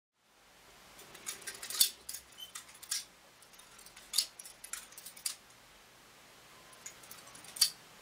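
Homemade all-steel butterfly knife (balisong) being flipped by hand, its handles clacking against each other and the blade in a series of sharp, uneven metallic clicks.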